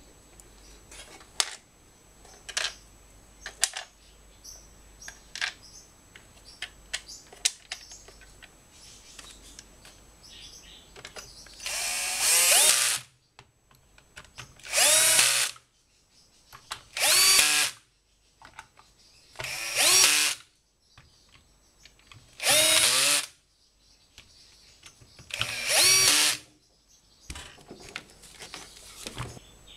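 Bosch cordless drill-driver driving screws into the plastic housing of an electric grass trimmer to close it up. There are six short runs of about a second each in the second half, each rising in pitch as the motor spins up. They follow a stretch of light clicks and knocks from handling the parts.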